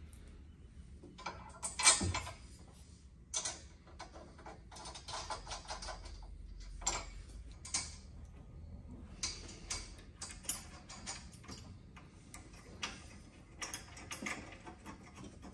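Light metal clicks and ticks as M8 hex bolts, washers and nylock nuts are fitted by hand to join a steel tie bar to a roll-bar hoop's bracket. The clicks come irregularly, with a louder one about two seconds in and runs of quicker ticking around the middle.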